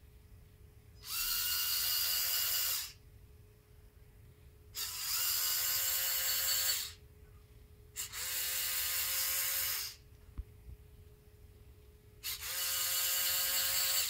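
LEGO Powered Up motor whining through its gearing in four separate runs, each lasting about two seconds and cutting off abruptly, even though the app's throttle slider is held: the motor stops on its own after about two seconds each time, the fault the owner is trying to solve.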